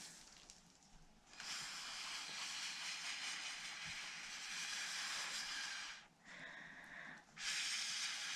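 Breath blown through a straw onto wet acrylic paint, a rushing hiss: one long blow of about five seconds, a brief break with a softer breath, then another blow starting near the end.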